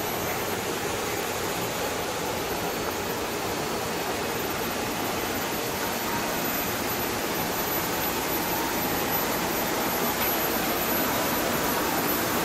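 Steady rushing hum of parked electric trains' running equipment (air-conditioning and blowers), getting slightly louder near the end.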